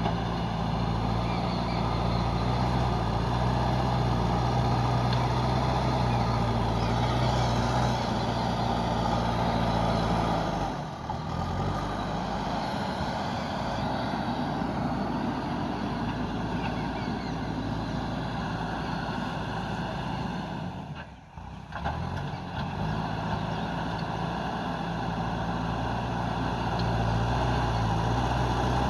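Diesel engine of a JCB 3DX backhoe loader running steadily at working revs. About ten seconds in its note drops lower and quieter, dips briefly about two-thirds of the way through, and comes back up near the end.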